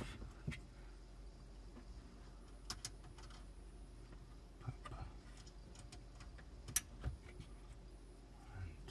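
Faint scattered clicks and small knocks of cable connectors and wiring being handled behind a car head unit, with a low steady hum underneath.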